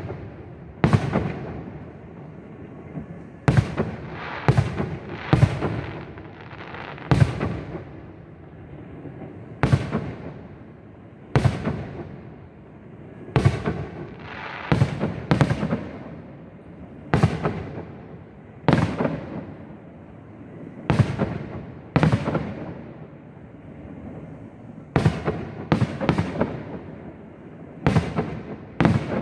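Fireworks display: aerial shells bursting one after another, about twenty sharp bangs every second or two, some in quick pairs or threes, each fading out in a trailing echo.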